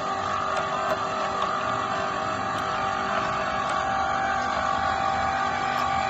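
Electric wire-rope hoist running steadily, its motor giving an even whine made of several held tones.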